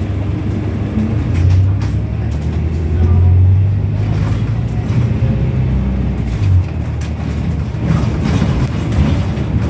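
Interior running noise of a Volvo B5LH hybrid double-decker bus under way: a low engine and drivetrain sound that swells about a second and a half in and again around three seconds in.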